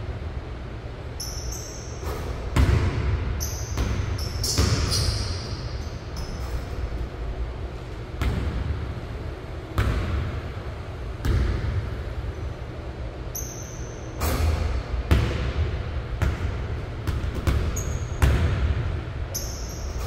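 Basketball bouncing on a hardwood gym floor as it is dribbled and rebounded: irregular sharp thuds every second or two, each echoing in the large hall. A few short high-pitched squeaks come in between.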